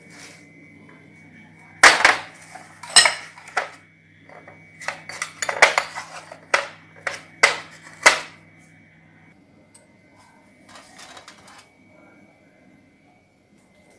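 Brass cups and ceramic crockery clinking and knocking together as they are picked up and set down on trays, with a string of sharp clinks and then only faint handling from about nine seconds in. A steady low hum runs underneath and stops at about the same point.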